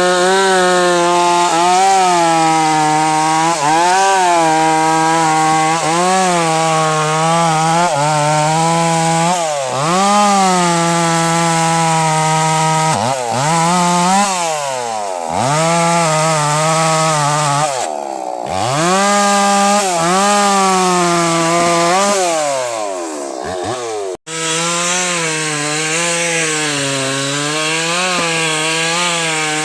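Chainsaw with a 22-inch bar cutting wood, its engine pitch repeatedly dropping as the chain bites and rising again as it frees up. The sound cuts out for an instant about a third of the way from the end, then carries on.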